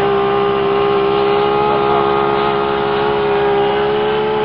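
Radio-controlled scale model Loening amphibian biplane flying overhead, its motor and propeller giving a steady drone with a clear pitch that edges up slightly near the end.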